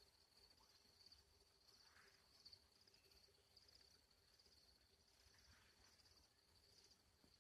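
Faint crickets chirping, a high pulsed trill repeating steadily over a soft outdoor hush.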